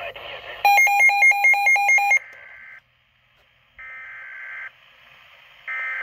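Midland weather alert radio beeping rapidly in a high two-tone pattern for about a second and a half. Then come three short, harsh buzzing bursts of SAME digital data tones, about a second each and a second apart. This is the coded header of an incoming severe thunderstorm warning, the last burst arriving near the end.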